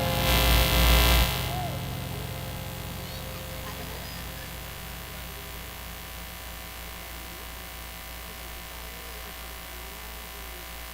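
Live keyboard backing music ends on a loud final hit that dies away over the first two seconds. Then a steady electrical hum from the sound system remains, with faint voices under it.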